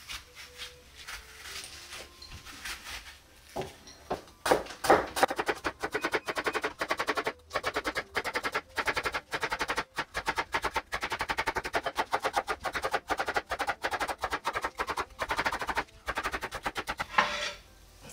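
Kitchen knife slicing a bitter melon thinly on a plastic cutting board: after about four seconds in, a fast, even run of sharp chops, several a second, that stops shortly before the end. Before the chopping, quieter scraping as the seeds are scooped out with a spoon.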